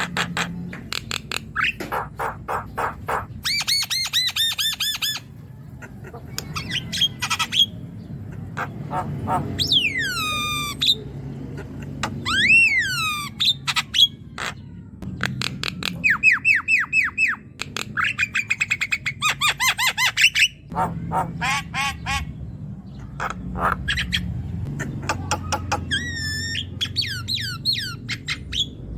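Javan myna singing a long, busy song: rapid rattling trains of clicks, harsh squawks and clear whistles that swoop down and back up.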